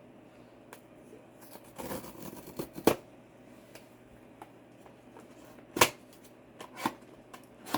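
A small cardboard blind box being opened by hand: papery rustling and scraping of the card packaging, with a few sharp clicks, the loudest about three seconds in and near six seconds.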